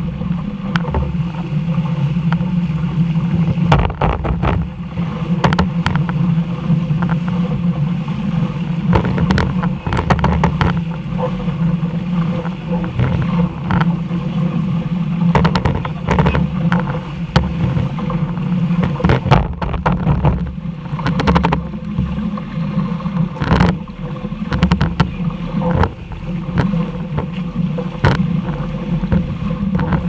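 A boat on open water: a steady low engine-like drone runs throughout, broken by frequent short sharp knocks and gusts, which are likely wind on the microphone and the hull hitting waves.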